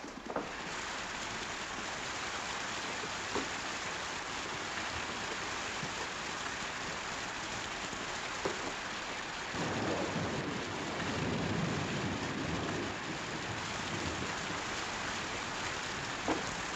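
Steady heavy rain hissing, with a low rumble of thunder rolling in about halfway through and lasting several seconds.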